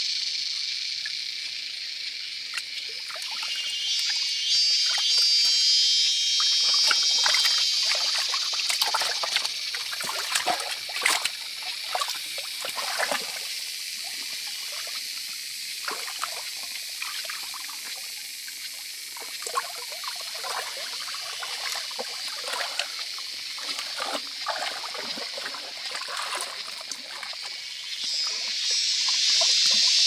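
Shallow stream water trickling and sloshing as hands grope and splash through it, with irregular small splashes, over a steady high-pitched background hiss.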